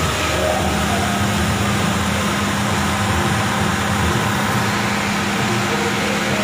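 Heavy rain pouring down, an even steady wash of noise, with a low steady hum underneath that comes in about half a second in.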